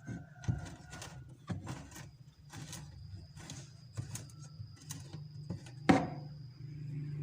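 Irregular clicks and knocks of things being handled, over a steady low hum, with one loud knock about six seconds in.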